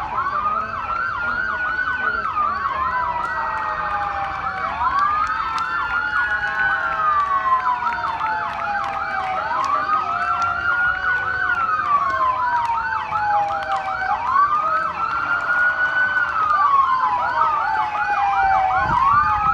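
Police car sirens sounding together: a slow wail that rises quickly and falls slowly about every five seconds, with a fast yelp sweeping up and down about four times a second over it, getting louder toward the end.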